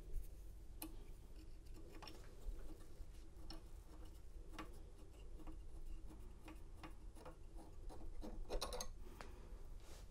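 Faint, scattered small metallic clicks and ticks of an Allen wrench turning out a screw that holds a key-cutting machine's shipping bracket, with a quicker run of clicks near the end.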